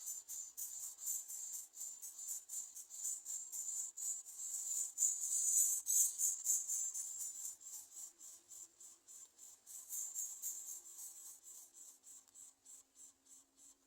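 Insects chirping in a fast, even pulse of high-pitched chirps, about four a second, growing fainter in the last few seconds.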